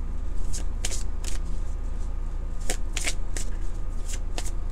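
A deck of tarot cards being shuffled by hand, overhand: irregular short swishes and slaps of cards sliding through the hands, often two or three in quick succession, over a steady low hum.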